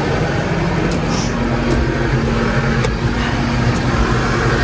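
Farm tractor engine running steadily, with a few light clicks over it.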